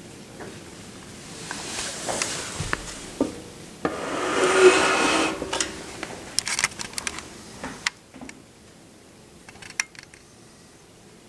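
Handling noise from a handheld camera: two stretches of rubbing, rustling hiss, the second and louder about four seconds in, followed by scattered clicks and taps.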